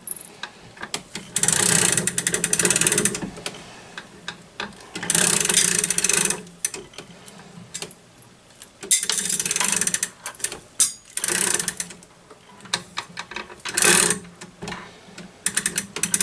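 Grandfather clock's hour weight being wound up: the winding ratchet clicks rapidly in spurts of a second or two, with short pauses between turns.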